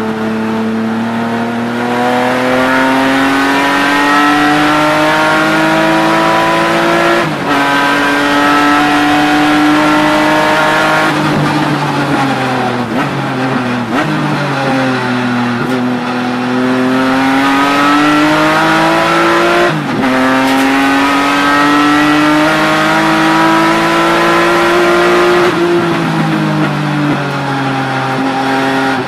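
BMW E36 M3 race car's straight-six engine, heard from inside the cabin, pulling hard with its pitch climbing through the gears. It makes quick upshifts about seven and twenty seconds in. Around the middle the pitch falls in steps through downshifts before it climbs again, and it backs off near the end.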